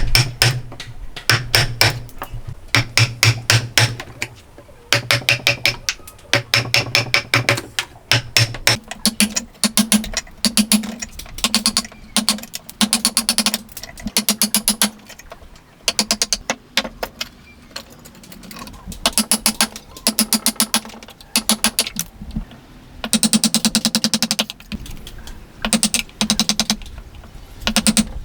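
Hand-tool woodworking on wood: repeated short bursts of rapid ticking strokes, each burst about a second long with brief pauses between.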